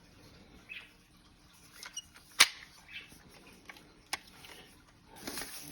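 Handling of a selfie stick tripod: a few sharp clicks, the loudest about two and a half seconds in and another about four seconds in, with lighter ticks and rustling near the end.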